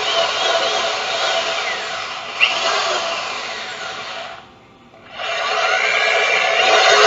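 Power drill spinning a metal manual burr coffee grinder, grinding coffee beans, with a whine that rises and falls with the drill's speed. The drill stops for under a second a bit past four seconds in, then starts again.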